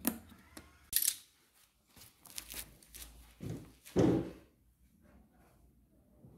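Handling noises of a plastic engine-oil jug being capped: a click and a sharp scrape about a second in, some rustling, then two dull thunks about three and a half and four seconds in, the second the loudest, followed by quiet.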